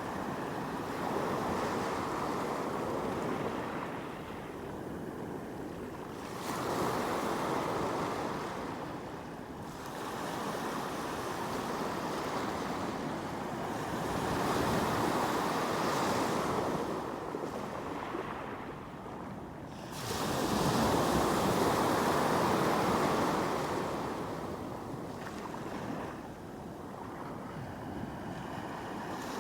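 Sea waves breaking and washing up on the shore, rising and falling in surges every few seconds; the loudest surge comes about two-thirds of the way through.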